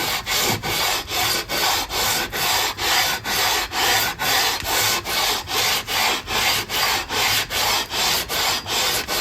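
Leveling beam sanded back and forth along the bare fretboard of a de-fretted Stratocaster neck in quick, even strokes, about two to three a second, to level the board.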